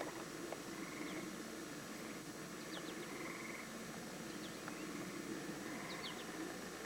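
Faint outdoor ambience: a few short, high bird chirps over a steady low hum.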